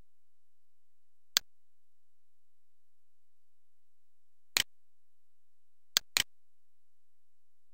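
Computer mouse clicks: a single click, a quick double click about three seconds later, then two more clicks close together near the end.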